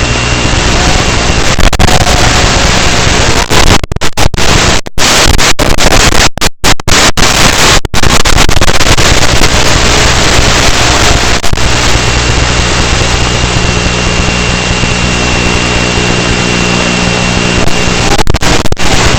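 Loud wind rushing over the microphone on top of a steady hum from a small 2S electric RC aircraft's motors. The sound cuts out completely for brief moments several times, mostly in the middle and again near the end.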